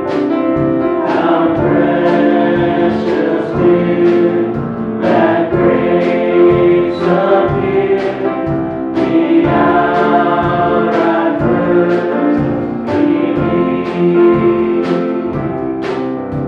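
Small church praise band playing a hymn: a woman and a man singing the verse together over a drum kit and guitar. Near the end the voices stop and the instruments carry on.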